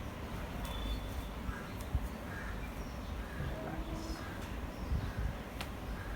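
Repeated bird calls, roughly one a second, over a steady low rumble, with a few short sharp clicks.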